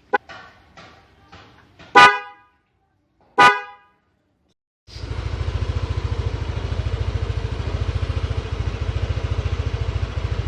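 Denso snail-type (spiral) horn on a Yamaha Aerox scooter, tapped in a few short toots and then sounded in two loud blasts about a second and a half apart; very shrill. About five seconds in, the scooter's engine starts and idles with a steady rapid beat.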